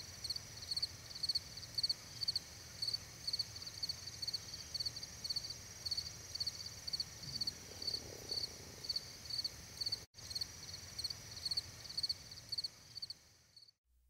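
Insects chirping in a high, even rhythm, about two to three chirps a second, over a steady high insect drone. The sound drops out briefly about ten seconds in and fades away near the end.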